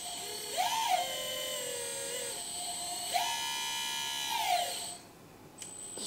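Brushless hydraulic pump motor of a 1/14-scale Liebherr 945 RC excavator whining as the arm and bucket move. Twice the whine rises in pitch, holds and falls away, and the second run is higher.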